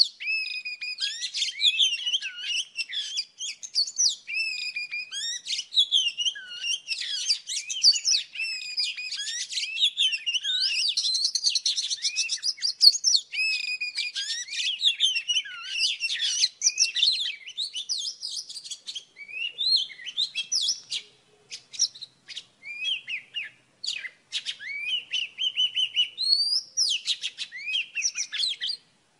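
Oriental magpie-robin singing: a long, varied run of whistled notes, slurred glides and chirps. It is packed tightly at first, then breaks into sparser short, sharp notes with brief pauses in the last third.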